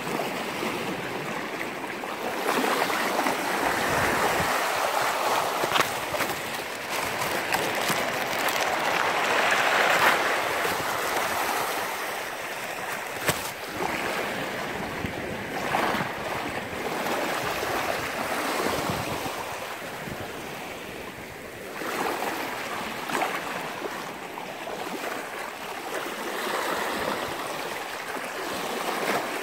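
Small sea waves lapping at the shore, a steady wash that swells and eases, with a few light clicks scattered through it.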